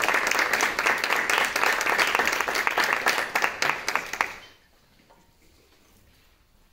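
Audience applause, many hands clapping, which dies away about four seconds in.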